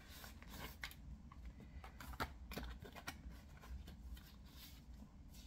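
Faint handling of a Lorac eyeshadow palette's cardboard box being opened: scattered light clicks, taps and scrapes of card and paper at irregular intervals.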